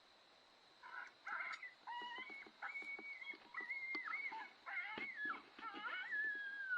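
Coyotes yipping and howling from about a second in: short choppy yips give way to drawn-out wavering howls, with several voices overlapping toward the end.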